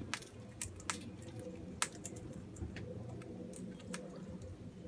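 King parrots feeding on seed, their beaks giving sparse, irregular sharp clicks, over a faint steady hum.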